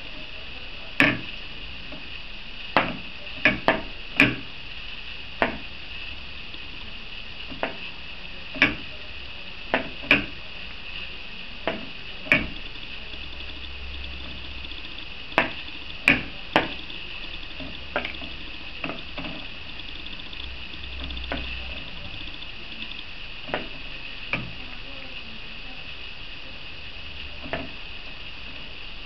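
Scattered sharp plastic clicks and knocks, irregular, roughly one every second or two, as a small toy globe is turned and handled by hand. A steady high hiss runs underneath.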